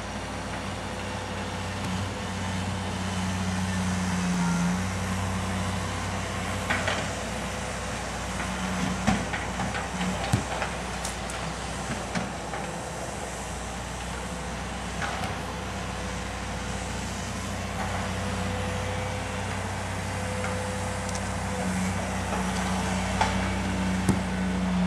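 Steady low drone of a heavy vehicle engine, swelling a little now and then, with a few sharp thumps of a soccer ball being kicked.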